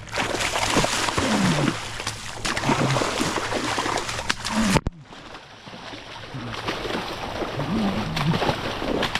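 Juvenile tarpon thrashing and splashing in shallow water as it is landed, a dense rushing splash noise with a sudden break about halfway through.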